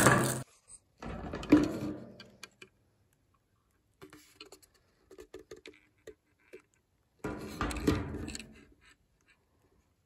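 Plastic wrap crinkling in three bursts as a camera dome and its clear plastic housing are unwrapped, with a few light plastic clicks and taps in between.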